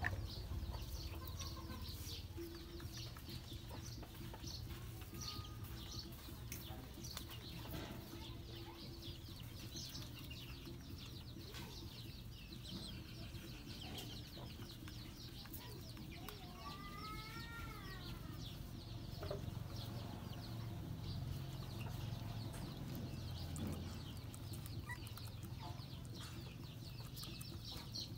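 Puppies suckling at their mother's teats, with soft clicking and smacking sounds throughout. A bird gives one short call about two-thirds of the way through.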